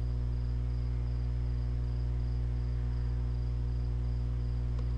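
Steady electrical mains hum with many evenly spaced overtones, under a faint steady high-pitched whine, with one faint click near the end.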